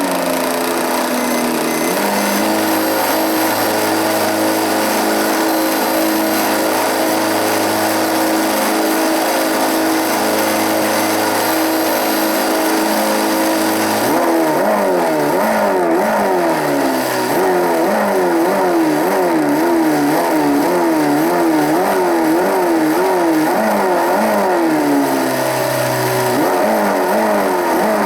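Mini Cooper S slot car running on a dyno test bench with an engine sound: a steady engine note for about the first half, then the pitch rises and falls over and over like revving, as the car is warmed up and then run toward top speed.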